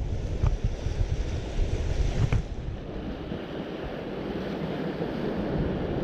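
Wind buffeting the microphone over surf washing against the shore. The gusts drop away about two and a half seconds in, leaving the steady wash of the waves.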